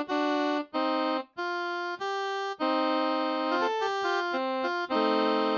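A melody with chords played on a Casio CTK-2550 electronic keyboard, with short notes moving every fraction of a second, brief breaks about a second in, and a held low note coming in near the end.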